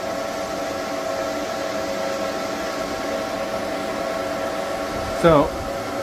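Cooling fans of EG4 6000XP inverters running flat out, a steady loud rush of air with a steady multi-tone whine; the inverters are overloaded at about 100% on each leg. About five seconds in, a brief louder sound sweeps sharply downward in pitch.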